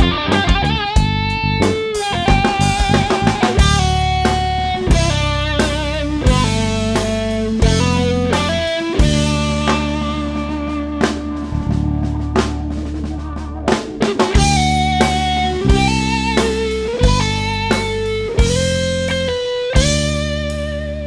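Blues-rock instrumental break: an electric guitar plays a solo of single bent notes over bass guitar and a drum kit.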